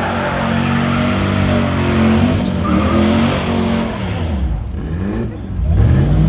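Pickup truck doing a burnout: the engine is held at high revs while the rear tires spin and squeal against the pavement. Near the end the revs drop and climb again a couple of times.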